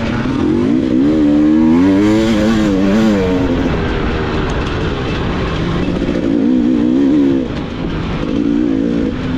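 Dirt bike engine in an off-road race, revving up and down as the rider works the throttle, with its pitch rising and falling in surges, the strongest about one to three seconds in.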